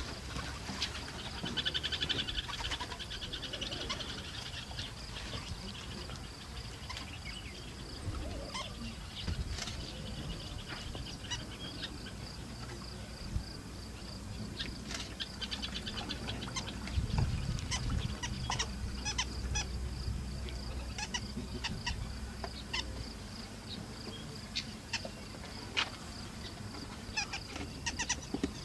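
Wild birds calling and chattering in short, scattered calls over a steady, high-pitched insect drone, with a low rumble for several seconds past the middle.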